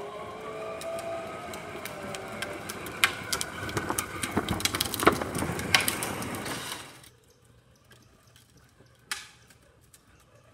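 Battery-powered ride-on toy Mustang (Power Wheels style) driving off: its electric drive motors whine steadily while its plastic wheels crackle and click sharply over the gritty concrete floor. The sound fades out about seven seconds in, leaving near silence with a single knock near the end.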